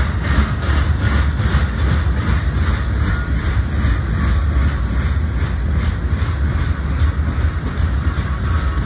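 Freight cars of a CSX mixed freight train rolling past: a steady low rumble with a fast, regular clickety-clack of steel wheels over rail joints.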